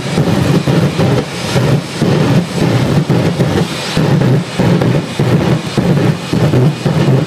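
Jet dragster's turbine engine running at high power with its afterburner lit: a loud rumbling roar that pulses two or three times a second.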